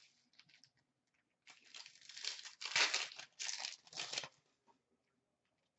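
Foil wrapper of an Upper Deck hockey card pack crinkling and tearing as it is ripped open by hand, in a run of crinkly bursts from about a second and a half in until just past four seconds.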